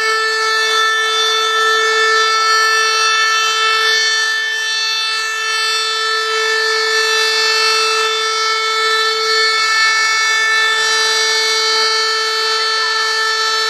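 Siren sounding one long, steady tone with strong overtones, held at the same pitch throughout.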